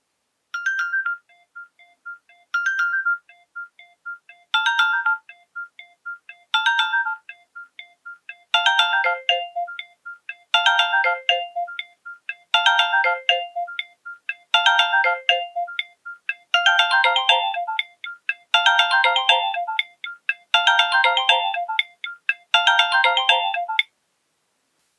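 Polyphonic ringtone playing from a Nokia 6234 mobile phone's loudspeaker. A short melodic phrase repeats about every two seconds, thin at first and filling out with more parts from about eight seconds in, then stops near the end.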